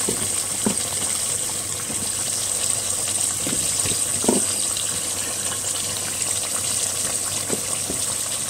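Meat and spiced onion base sizzling in a pot under a layer of raw vegetables, a steady hiss. A few soft knocks come as vegetable pieces are set in.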